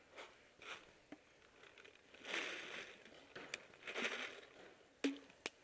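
Soft rustling and crunching, with two sharp snaps about half a second apart near the end.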